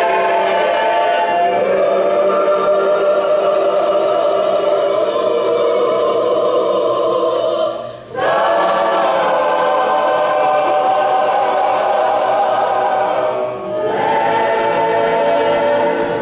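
Large mixed choir of men and women singing sustained chords, with two brief breaks between phrases: one about halfway through and one a few seconds before the end.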